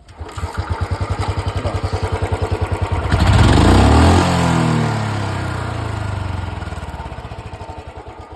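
Royal Enfield Bullet Standard 350 single-cylinder engine running through its stock silencer, with distinct evenly spaced exhaust beats. About three seconds in it is revved once, rising in pitch, then drops back and the beats ease off.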